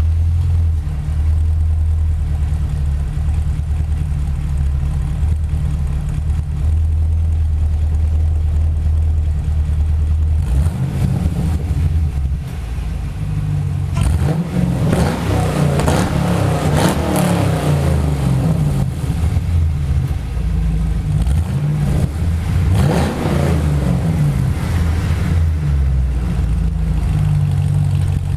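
Chevrolet Camaro engine idling steadily, then revved twice: a long rev about halfway through that climbs and falls back, and a shorter blip a few seconds later before it settles back to idle.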